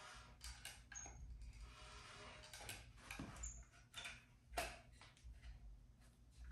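Faint, scattered clicks and ticks from a caulking gun being squeezed while a bead of silicone is laid along the wheel's seam. The sharpest click comes about four and a half seconds in.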